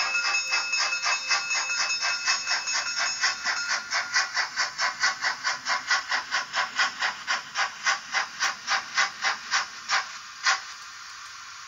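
Sound effect from a Märklin BR 56 model steam locomotive: a steady tone fades over the first few seconds while rhythmic steam chuffs, about four a second, run on. The chuffs stop with one louder hiss about ten and a half seconds in, and a soft hiss stays after it.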